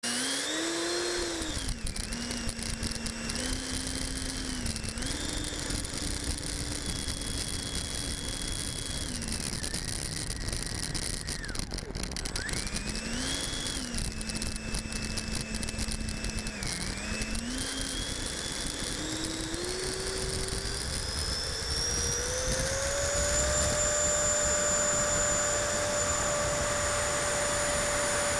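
The 70 mm inrunner electric ducted fan of an RC jet whining, heard close up from the airframe. Its pitch steps up and down with small throttle changes while the model taxis, then rises over a few seconds to a louder, high steady whine at full throttle for the takeoff run.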